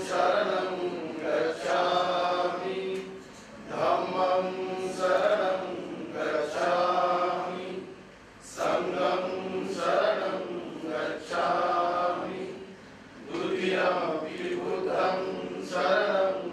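Voices chanting a prayer in unison, in long held phrases with short pauses between them about every four to five seconds.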